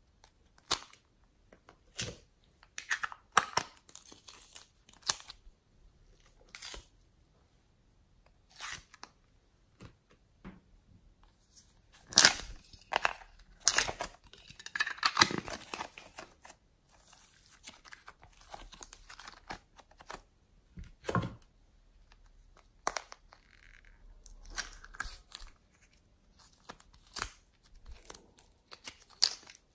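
Small plastic slime pots being opened and handled: sharp clicks from the lids and short crackling, tearing noises as slime is pulled out. They come in uneven spurts with quiet gaps between, busiest about halfway through.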